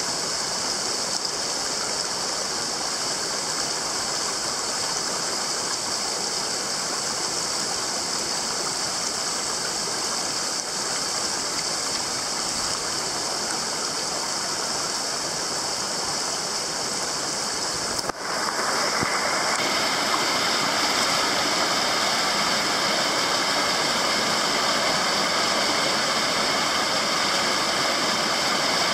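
A small mountain headwater stream rushing over rocks and a little cascade, a steady water noise. About two-thirds of the way through it breaks off for an instant and comes back louder.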